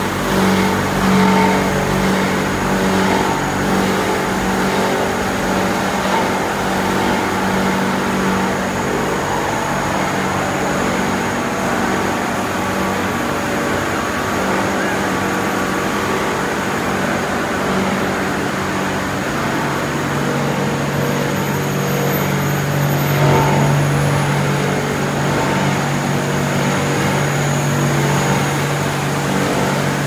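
PE/PP film washing line running: electric motors, conveyors and washing tank machinery making a steady loud hum with a hiss over it. The low drone shifts lower about two-thirds of the way through.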